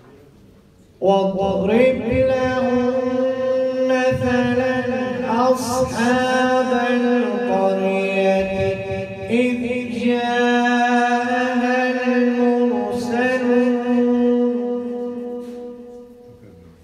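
A man's voice reciting the Quran in the melodic chanted style (tilawa), one long phrase of held and ornamented notes that begins about a second in and fades away near the end.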